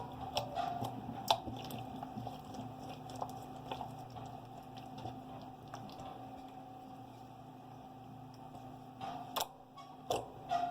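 Pink bubblegum slime being squeezed and stretched by hand for ASMR: soft wet squishing with many small scattered pops and clicks, busier near the end.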